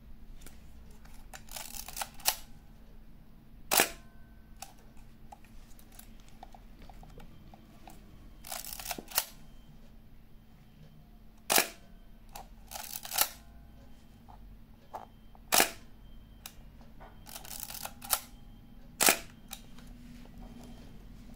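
Kowaflex Model E 35mm SLR camera being wound and fired four times. Each time a short ratcheting wind ends in a click, and a second or two later comes a single sharp shutter-release click.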